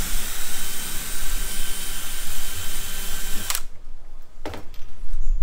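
Cordless drill running as it bores through the plastic wall of a portable livewell to enlarge a hole, a steady whirring that stops abruptly about three and a half seconds in. A couple of short clicks follow.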